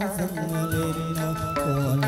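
Chầu văn ritual music: sung melody with wavering, ornamented notes and one long held note in the middle, over a small ensemble punctuated by sharp percussion taps.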